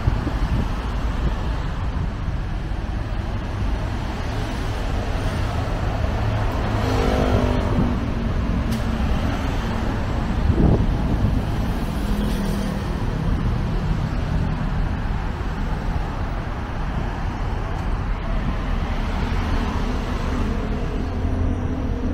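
Steady road traffic on a busy multi-lane city street: cars, vans and motorbikes passing close by, with one engine's note shifting in pitch about seven seconds in.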